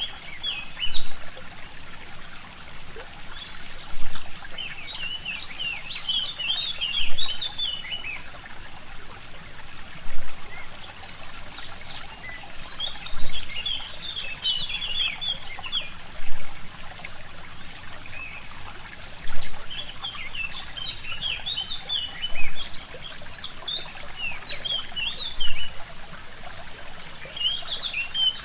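A small stream trickling steadily, with a brief louder burst about every three seconds, while forest songbirds sing in repeated phrases of quick high chirps.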